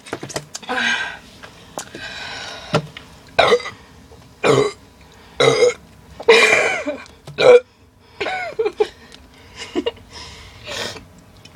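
A girl burping over and over, forcing up gas from gulped carbonated soda: short burps and a few drawn-out ones, the longest and loudest a little past halfway.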